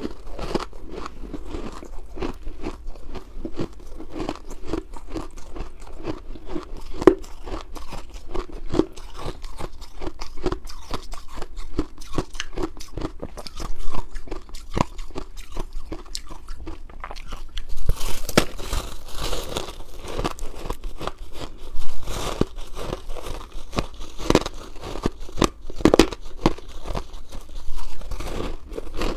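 Close-miked crunching of shaved, blended ice being bitten and chewed in the mouth: steady crackly chewing at about two crunches a second, with several louder bites in the second half.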